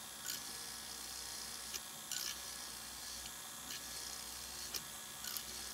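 Dremel Micro cordless rotary tool turning slowly, its small bit drilling a pilot hole through a plastic model flat car's stake pocket: a faint steady whir with a few light scratchy ticks as the bit cuts the plastic. It runs slowly because a fast bit would melt the plastic.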